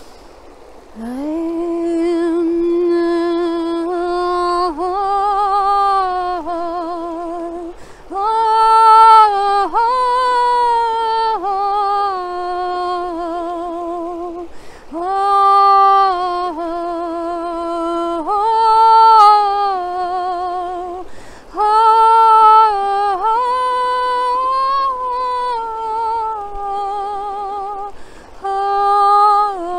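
A woman singing wordless, channelled light-language tones: long held notes with vibrato that slide up and down between pitches, broken by short breaths every several seconds.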